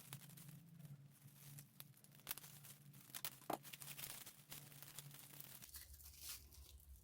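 Quiet handling of packaging: paper or plastic tearing and crinkling, with scattered small clicks.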